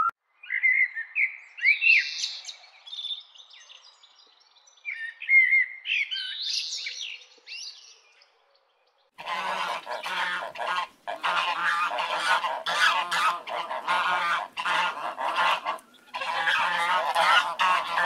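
A common blackbird sings two short warbling phrases. After a brief pause, ducks quack loudly and rapidly in long runs of calls with short breaks.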